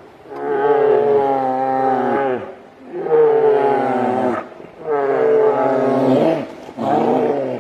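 Two grizzly bears fighting, giving loud, drawn-out roaring bawls one after another, four calls in all, each falling in pitch as it ends.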